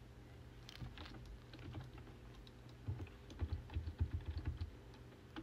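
Typing on a keyboard: scattered key clicks that thicken into a quick, louder run about three seconds in.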